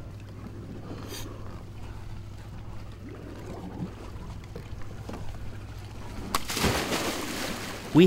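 Steady low hum of a dive boat's engine idling. About six seconds in, a loud rush of water and bubbles lasts a second or two as the divers go into the water and descend.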